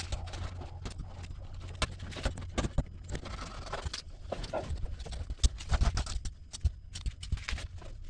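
Irregular soft taps and clicks of resin-soaked fiberglass cloth being dabbed and pressed into place by a gloved hand, over a steady low hum.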